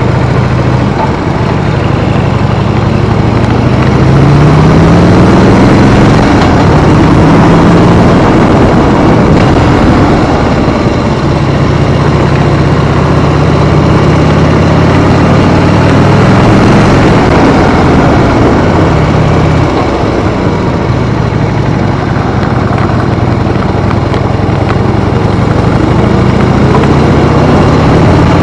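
Harley-Davidson motorcycle engine running under way, its pitch climbing and dropping back several times as the bike accelerates through the gears, over a steady rushing noise.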